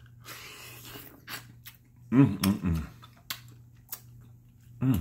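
A person eating buttery seafood with his fingers: a wet slurping hiss near the start, then sharp lip smacks and mouth clicks, with a short voiced murmur a little after halfway and another at the very end. A steady low hum runs underneath.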